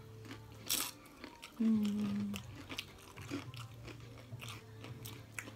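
Crunching of tortilla chips being bitten and chewed, with a short hummed "mm" about a second and a half in.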